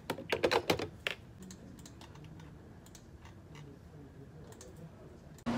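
Computer keyboard typing at an office desk: a quick burst of keystrokes in the first second, then scattered light clicks.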